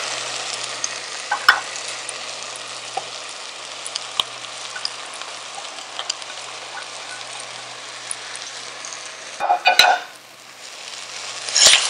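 Onions, green chilies and oil sizzling on high heat in a pot as shredded boiled chicken is scraped in from a plate. It is a steady sizzle with scattered clicks of the spoon and spatula, and a short run of knocks near the end after which the sizzle briefly drops quieter.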